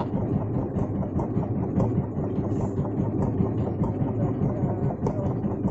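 Boat engine idling steadily, a low even rumble.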